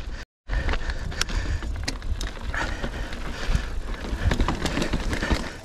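Mountain bike ridden up a rocky trail: tyres on rock and the chain and frame clattering in many small knocks over a low rumble. The sound drops out for a moment just after the start.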